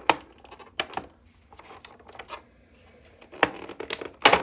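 Hands opening a toy and its packaging: a series of irregular sharp clicks and rustles, the loudest near the start and near the end.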